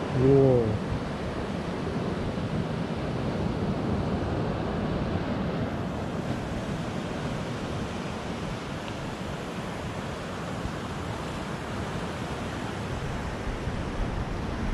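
Surf breaking and washing on the shore, a steady rush of waves mixed with wind buffeting the microphone. A brief voice-like sound right at the start.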